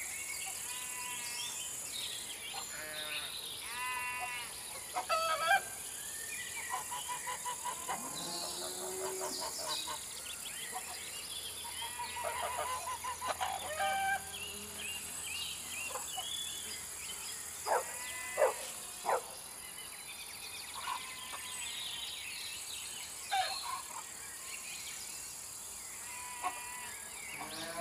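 Assorted bird calls and chirps, some in rapid trills, over a steady high hiss.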